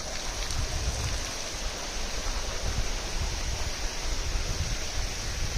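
Steady rush of water, with an uneven low rumble of wind buffeting the microphone.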